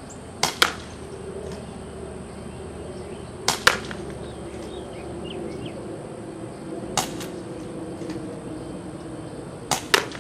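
UHC green gas airsoft revolver firing four shots a few seconds apart; each shot is a sharp double crack, two pops about a fifth of a second apart.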